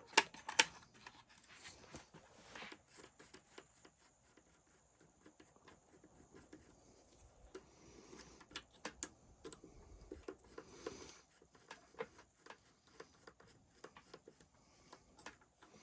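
Irregular small clicks and taps of a hand tool and plastic and metal parts being handled while a part is removed from an RC truck's front end, with a few sharper clicks just after the start and about nine seconds in.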